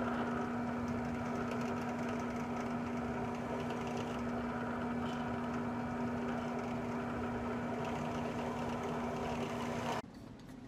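Benchtop drill press motor running steadily with a constant hum while it drills a hole through the centre of a wooden disc. The sound cuts off suddenly near the end.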